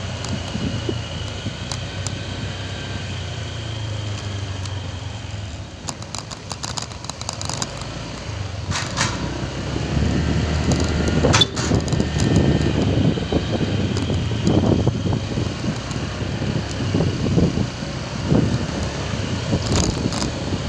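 Motorcycle ridden along a road: the engine runs steadily, with wind rumbling on the microphone that grows louder about halfway through. There are a couple of sharp clicks near the middle.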